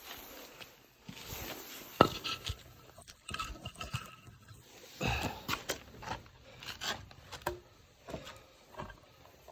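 Irregular knocks and scrapes of firewood being handled, piece against piece, with one sharp knock about two seconds in.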